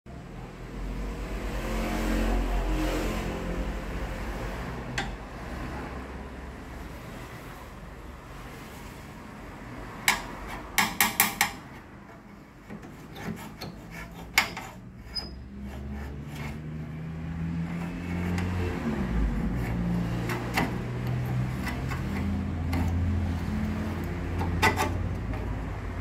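A screwdriver scrapes and taps on the metal terminals of a microwave oven's high-voltage capacitor, over a low hum. A quick run of about five sharp clicks comes about ten seconds in.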